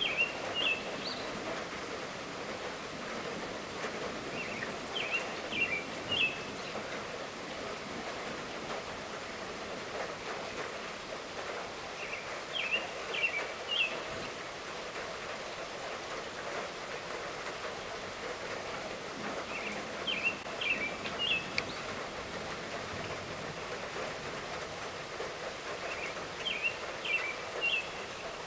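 Steady light rainfall with a bird repeating a short high phrase of three or four chirps about every seven seconds.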